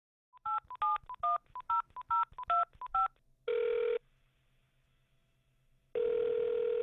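A touch-tone phone dialing a seven-digit number, about two to three beeps a second, followed by the ringing tone on the line: a short ring, then a steady two-second ring starting about six seconds in. The sound is thin, as if heard over a telephone line.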